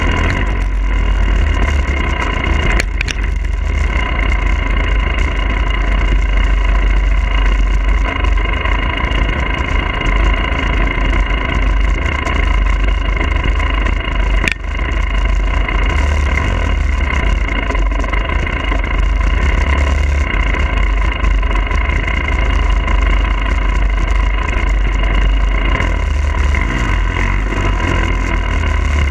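2022 Husqvarna TE300i's two-stroke engine running at a fairly steady throttle while riding, with heavy wind buffeting on the bike-mounted microphone. A sharp knock about halfway through.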